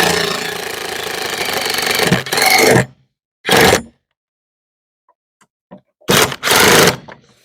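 Cordless impact driver driving the last screw of a steel barrel-bolt gate latch into the wooden gate: one long run that eases off partway and ends about three seconds in, then three short bursts to seat the screw.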